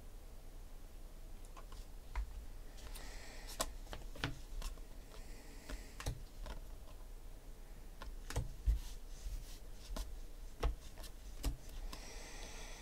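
A stack of glossy football trading cards being flipped through by hand: irregular soft clicks and snaps of card edges, with a few brief sliding swishes as cards are slid off the stack.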